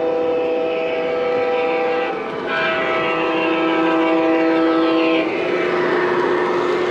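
Lionel Amtrak Acela O-scale model train's onboard sound system sounding its horn in two long blasts. The first ends about two seconds in, and a lower-pitched second blast follows and stops about five seconds in. Underneath is the steady running noise of the train passing on the track.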